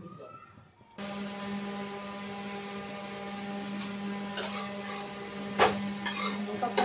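A steady low electrical hum with a ladder of overtones starts abruptly about a second in. Near the end come two sharp clicks, a metal utensil knocking against an iron griddle as a paratha is moved.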